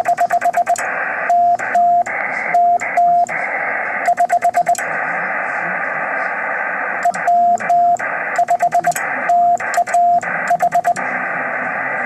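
Morse code on a single steady beep tone over constant radio-receiver hiss: the call sign W5TAH keyed on a telegraph key, with a pause of a few seconds between two groups of dots and dashes. The second group spells out W5TAH clearly.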